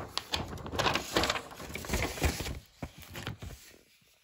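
Folded paper instruction sheet being unfolded and spread open by hand, rustling and crinkling. Loudest in the first couple of seconds, then dying down near the end.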